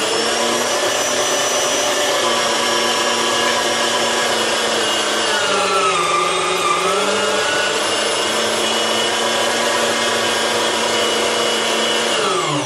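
Electric meat grinder motor running with a steady whine while it grinds a piece of bread to push the last mince out of the auger. Its pitch sags briefly around the middle under load and recovers, and the motor switches off and winds down near the end.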